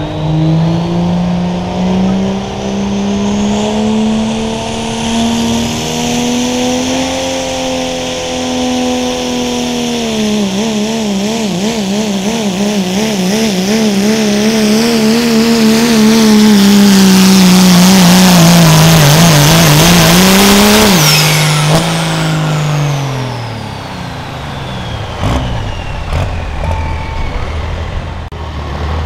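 Turbocharged diesel engine of a first-generation Dodge Ram pulling truck under full load on a pull. The engine climbs in pitch, then its speed wavers rapidly up and down for about ten seconds while it is loudest. About three-quarters of the way through it is shut off and drops away, with a high turbo whine falling for a few seconds after.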